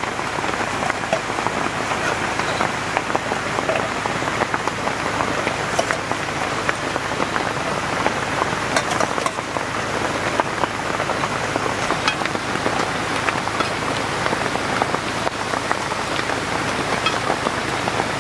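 Heavy rain falling steadily, with scattered sharp ticks of drops or utensils through it.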